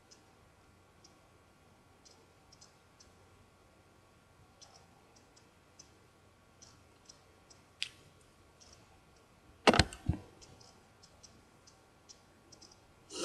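Faint, irregular sticky clicks of a lip-gloss wand applicator working glossy lips. A couple of louder knocks come close together about ten seconds in, and another comes near the end.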